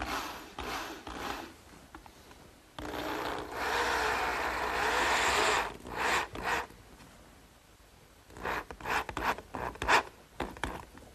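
A power drill driving a 2 1/2 inch self-drilling, self-countersinking wood screw into the end of a board. The screw rasps into the wood in one sustained run of about three seconds, with shorter scraping bursts before and after.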